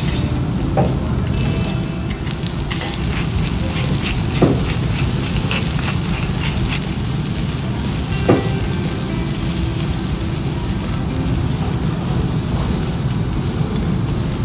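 Miyazaki beef sizzling steadily on a hot teppanyaki iron griddle. Three sharp clicks stand out over the frying, spread a few seconds apart.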